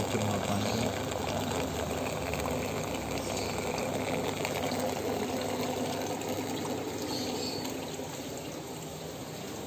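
Jebo 180 protein skimmer running on a marine aquarium: steady watery bubbling and gushing from the pumped air-and-water mix, slightly quieter near the end.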